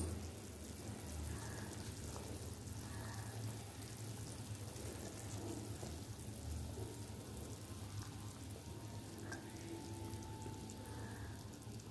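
Thick tamarind gravy boiling in a clay pot, with faint bubbling and soft pops over a low steady hum.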